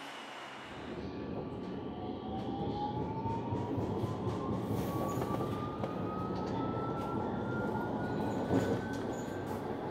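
Tram picking up speed. Its rolling noise grows about a second in, and from about two seconds in the traction motors' whine rises steadily in pitch until near the end.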